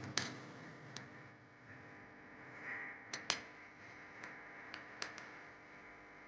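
Scattered light clicks and taps of small hard objects being handled, about nine at irregular intervals, the sharpest a pair about three seconds in.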